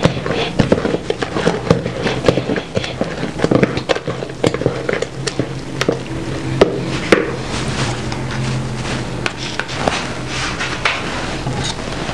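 Spoon stirring thick blended bean batter in a plastic bucket, with irregular clicks and knocks as it strikes the bucket's sides, over a steady low hum.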